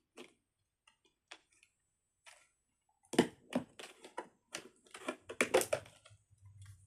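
Small fidget toys being handled from a plastic bucket: a few scattered clicks, turning into a denser, louder run of clicks and knocks about three seconds in.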